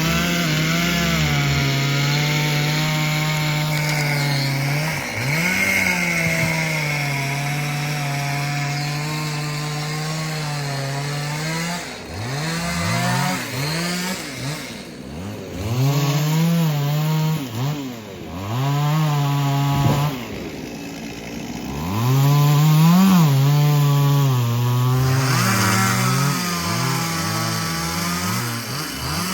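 Two-stroke chainsaw cutting into a tree. Its engine note sags and holds lower under load for long stretches, and the throttle is blipped up and down several times in between.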